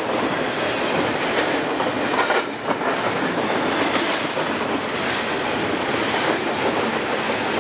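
Double-stack container freight train rolling past, its wheels running steadily on the rails.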